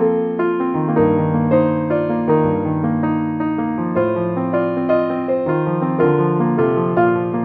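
Background piano music: a steady stream of electric-piano notes and chords.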